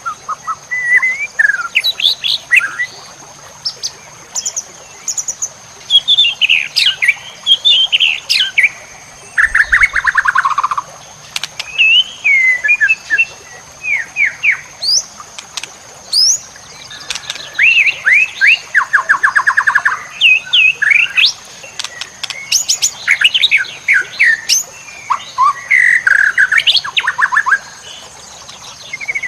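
White-rumped shama (murai batu) singing a varied, rapid song of whistled phrases and chirps. Fast trills of quickly repeated notes come about ten seconds in and again near twenty seconds.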